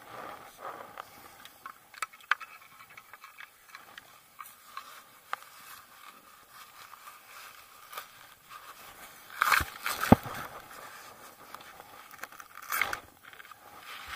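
Ski climbing skins and a ski being handled with gloved hands: scraping, crackling and rustling, with scattered clicks. Louder scuffs come about nine and a half seconds in and again near the end.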